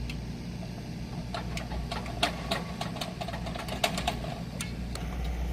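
A steady low engine hum, with a run of light, irregular clicks and scrapes of hard objects in the middle.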